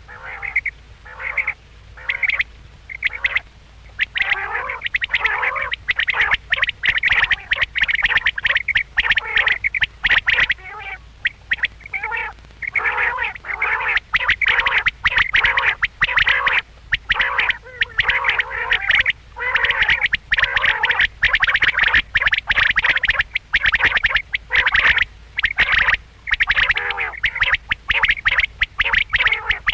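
Quail calling in runs of short, sharp calls. At first the calls come separately, about two a second. From about four seconds in they come close together and overlap, with brief pauses between runs.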